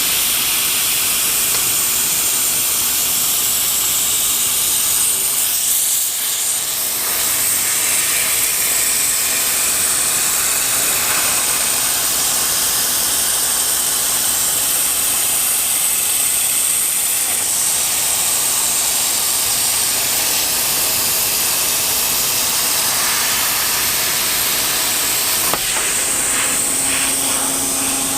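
Plasma cutter set to a fine-cut tip at about 45 amps, cutting plate: a loud, steady hiss of the arc and air, with a brief dip about six seconds in and a sharp click about 25 seconds in.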